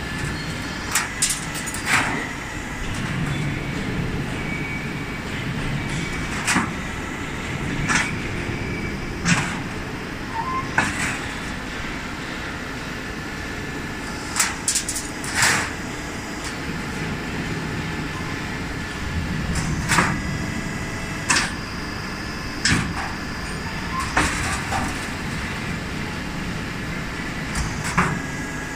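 Automatic sheet-metal HVAC duct production line running: a steady machine hum punctuated by sharp metallic bangs every second or few as the sheet is punched, sheared and formed.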